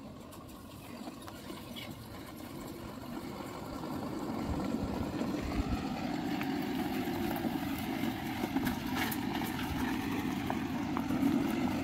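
Tata Ultra 1918.T truck's diesel engine running as the truck approaches along a rough dirt track, growing steadily louder over the last several seconds.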